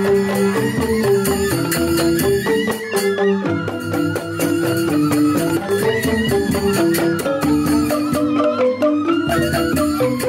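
Joged bumbung gamelan playing: bamboo xylophones (grantang) in a fast run of stepped notes, a bamboo flute (suling) carrying a sustained wavering melody above, and quick percussion clicks throughout.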